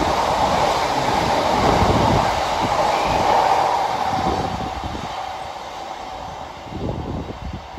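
Freight train of empty open box wagons rolling past, wheels rumbling and clattering over the rails with a steady hiss. The sound fades over the last few seconds as the tail of the train draws away.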